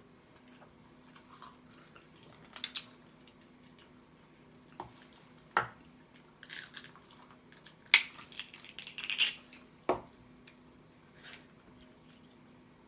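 Cooked Dungeness crab shell being cracked and broken apart by hand: a scatter of sharp cracks and crunches, the loudest about eight seconds in.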